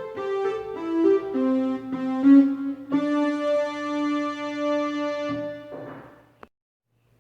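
Electronic keyboard playing a short descending run of notes over a steady low note, then holding one long note for about three seconds. The note stops abruptly with a small click near the end, and silence follows.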